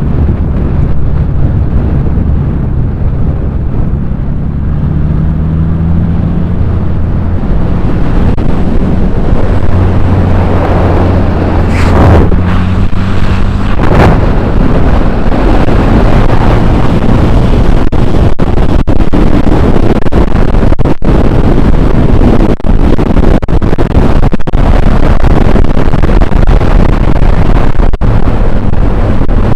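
Wind noise and low road rumble from a Nissan Z car driving at speed, with the engine's steady drone underneath. The rush of noise builds over the first dozen seconds and the engine note rises a little about six seconds in, then holds steady.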